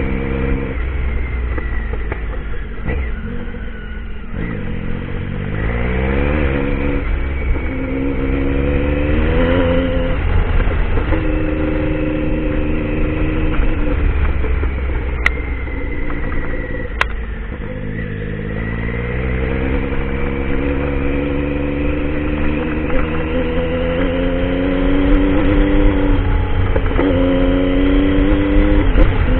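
Triumph Tiger motorcycle engine being ridden hard, its pitch climbing as it accelerates through each gear and dropping back at every shift, over and over. Two short sharp clicks come a couple of seconds apart about halfway through.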